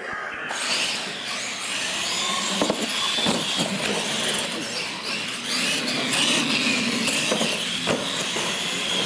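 RC monster trucks' electric motors and gearboxes whining at full throttle as a drag race starts suddenly, with a few sharp knocks along the way.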